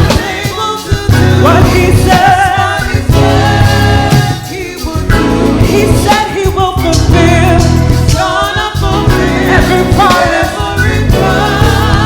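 Gospel vocal group singing with band accompaniment, the voices in long wavering phrases over a heavy bass line, with short breaks between phrases.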